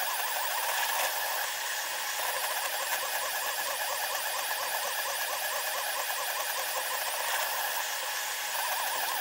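SeeMeCNC Orion Delta 3D printer's stepper motors running a print, played back about ten times faster than real time: a rapidly wavering whine over a steady hiss. The whine fades through the middle and comes back strongly near the end.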